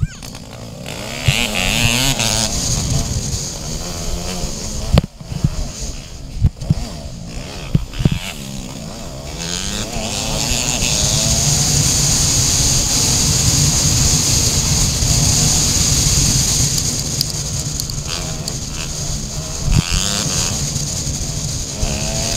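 Yamaha TT-R dirt bike's single-cylinder four-stroke engine revving up and falling back through the gears, then running steadily under load on a dirt trail, with a steady high hiss while riding. A few sharp knocks about five to eight seconds in and again near the end.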